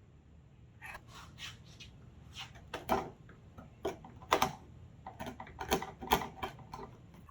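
Irregular clicks and short scrapes of a steel carving chisel working into wood.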